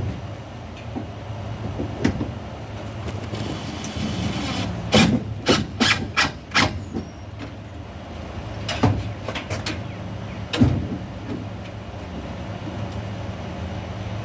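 Sharp knocks and clicks from hand work: a quick run of about five in the middle and three more a few seconds later, over a steady low hum.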